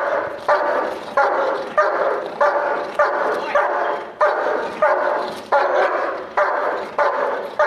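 German Shepherd protection dog barking steadily in a fast, even series, about one and a half barks a second: alert barking at a person on the 'watch' command.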